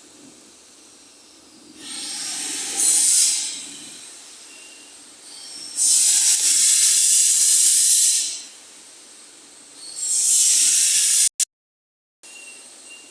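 Three loud bursts of hissing, each about two seconds long, over a quieter steady background. The sound cuts out completely for about a second near the end.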